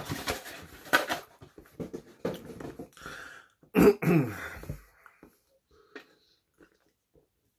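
Foam takeout clamshell being handled and shut, squeaking and rustling in the first second or so. About four seconds in, a person gives one loud cough and clears the throat.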